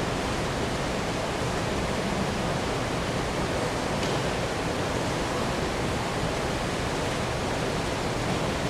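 Steady, even hiss of background room noise, without distinct strikes, footsteps or voices.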